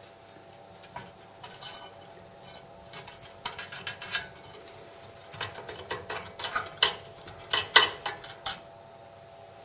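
Irregular metallic clinks and knocks of metal pieces or tools being handled: a few about three seconds in, then a quicker run in the second half, over a faint steady hum.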